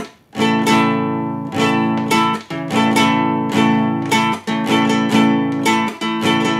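Acoustic guitar with a capo, strummed chords in a repeating pattern: one down, one up, the strings muted with the hand, then one down and one up. The ringing cuts off sharply at each mute, about every two seconds.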